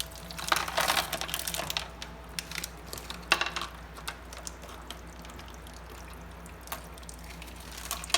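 Small tabletop fountain trickling, with its decorative stones clicking and clattering as they are shifted by hand, in a cluster of clicks near the start and a sharper clack about three seconds in. A steady low hum runs underneath.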